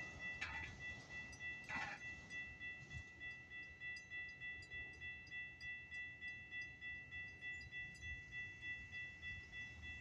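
Railroad grade-crossing warning bell ringing in quick, even repeated dings while the gates rise at the end of the warning cycle after a train has cleared. Two brief knocks sound in the first two seconds.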